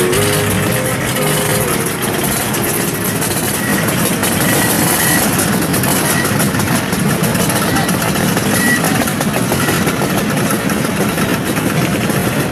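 Vintage Italian motor scooter engines running steadily, a dense engine noise.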